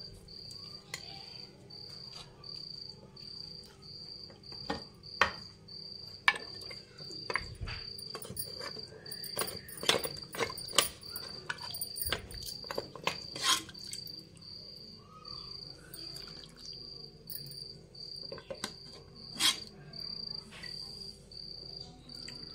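A steel ladle clinking and scraping against a metal pressure cooker pot as stew is served, in scattered sharp knocks. Underneath, a cricket chirps steadily, about two chirps a second.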